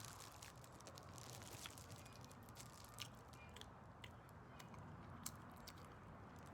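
Faint chewing with scattered soft mouth clicks over a low, steady background hum.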